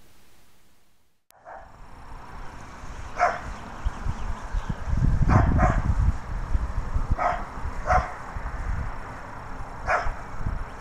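A dog barking in the distance, about six single barks a second or two apart, over a low rumble of wind on the microphone.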